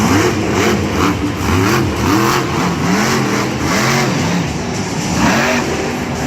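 Monster truck's supercharged V8 engine revving hard in quick repeated surges, its pitch rising and falling about once a second as the throttle is worked.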